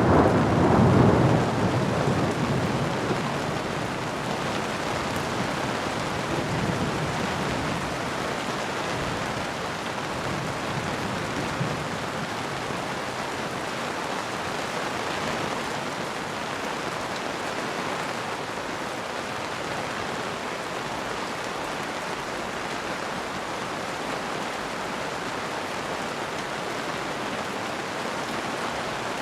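Steady heavy rain, with a roll of thunder rumbling at the start and dying away over the first few seconds.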